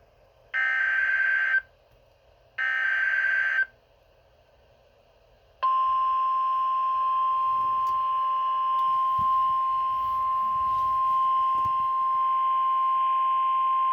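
Emergency Alert System weather alert from NOAA Weather Radio: two one-second buzzy digital SAME header bursts a second apart, then, about five and a half seconds in, the steady single-pitch 1050 Hz warning alarm tone that announces a severe thunderstorm warning.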